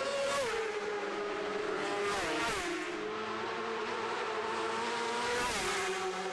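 Race motorcycle engine at high revs, its pitch dropping sharply about half a second in, twice around two seconds in and again near the end, and climbing slowly in between: a series of gear changes under hard acceleration.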